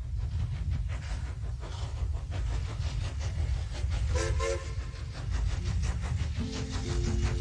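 Steam locomotive chuffing steadily over a low rumble, with two short blasts of its whistle about four seconds in. Music starts near the end.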